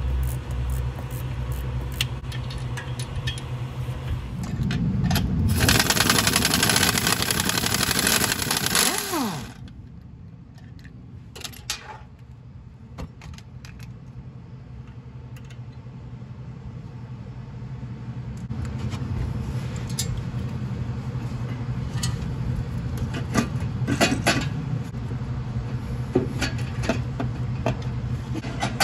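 Mechanic's work on a turbocharger's mounting hardware: a loud rushing noise for about four seconds near the start that ends in a falling whine, then, after a quieter stretch, scattered metallic clicks, knocks and scrapes as the turbocharger is worked loose and out of the engine bay, over a steady low hum.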